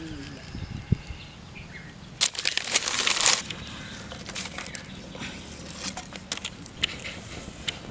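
Dry twigs and paper rustling and snapping as kindling is laid into a clay wood stove, with a dense burst of crackling about two seconds in, then scattered crackles and clicks as the kindling starts to burn.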